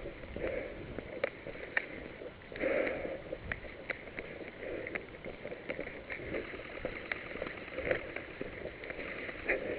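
Footsteps with rustling and scuffing of clothing and gear, about one step a second, with small clicks in between.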